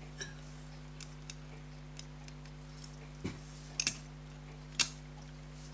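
Small metal clicks and taps of watchmaker's tools against pocket watch parts, irregular and sparse, with a close pair of sharp clicks and a louder single click near the end.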